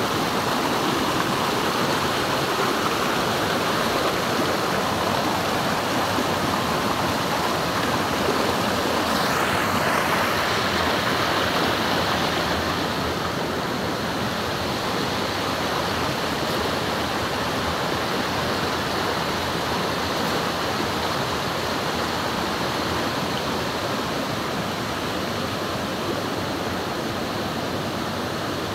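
Rushing river water, a steady, even rush of flowing water.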